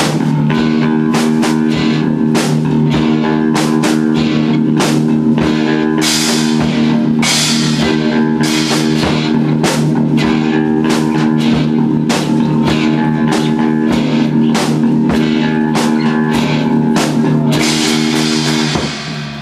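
Rock band playing live, an instrumental passage between sung lines: held guitar chords over a steady drum beat, dropping off briefly near the end.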